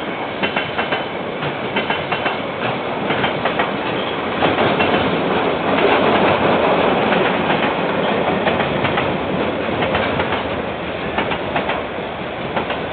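KiwiRail train rolling past, its wheels clicking rhythmically over the rail joints. The sound swells to its loudest in the middle as the train goes by, then eases. It is heard through a security camera's microphone, thin and with no high treble.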